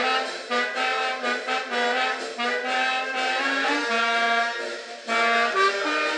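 A tune played on a musical instrument: a melody of held notes over a lower moving line, the notes changing every fraction of a second, with a brief pause just before the end.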